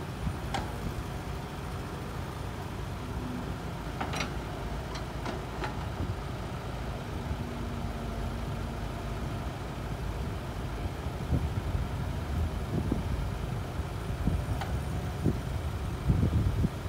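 Caterpillar hydraulic excavator's diesel engine running steadily as it digs soil and loads it into a dump truck's bed. Sharp clanks and knocks come through now and then, with a louder run of them near the end.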